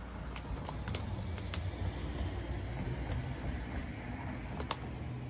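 Thin plastic water bottle crackling and clicking in the hand as a plant cutting is pushed down through its neck: a few scattered sharp clicks, the loudest about a second and a half in, over a steady low rumble.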